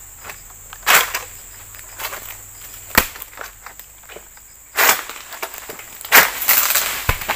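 Oil palm harvesting sickle (egrek) on a long pole hacking at the frond bases in a palm crown: sharp cutting strokes about one second and three seconds in, then louder cracking and rustling of fronds from about five seconds on.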